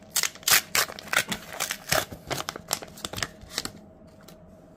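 A Teamcoach trading card pack's wrapper being torn open by hand: a quick run of crinkling and tearing crackles that stops about three and a half seconds in.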